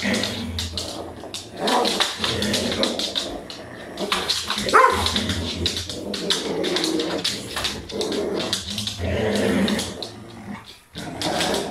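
A Belgian Malinois growling during rope tug-of-war, in long rough stretches broken by brief pauses, with scuffing and clicks from the struggle. One short, louder outburst comes about halfway through.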